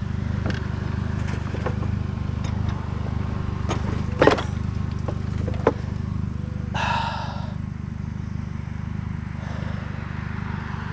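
Metal clinks and knocks from scrap being pulled apart by hand, the sharpest about four seconds in, with a short rasping scrape near seven seconds. A steady low engine drone runs underneath.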